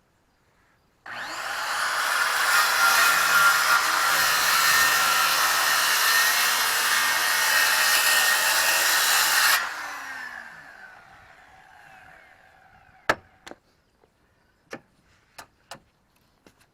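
Power saw cutting through the wooden flatbed sideboard at steady speed for about eight seconds, then spinning down after the trigger is released, its pitch falling. A few sharp knocks follow near the end.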